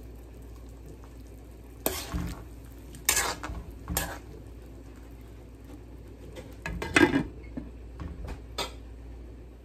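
Metal spoon knocking and scraping against an aluminum pan of boiling soup while stirring, with sharp clinks about two, three and four seconds in. About seven seconds in, a glass lid is set onto the pan with a clatter, followed by a few lighter taps.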